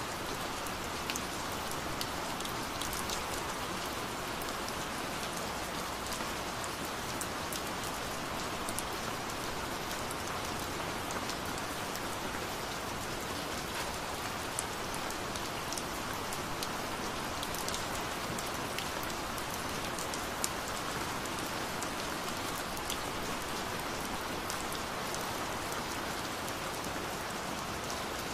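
Steady rain: an even hiss with many small drop ticks scattered through it.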